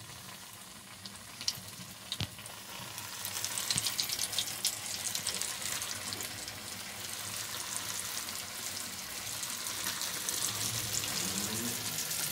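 Besan-coated fish pieces deep-frying in hot oil in a metal wok, a dense sizzling crackle that grows louder about three seconds in. A couple of sharp clicks come in the first few seconds.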